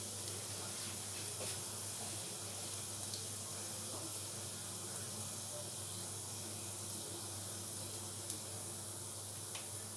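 Cumin seeds sizzling in hot oil in a kadai: a steady hiss with a few faint pops as the seeds crackle during tempering.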